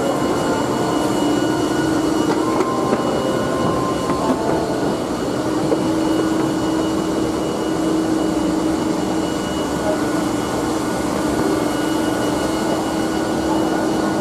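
Steady mechanical drone with a few held tones inside the cargo hold of a parked Kawasaki C-2 transport aircraft, from the aircraft's onboard ventilation and power systems running.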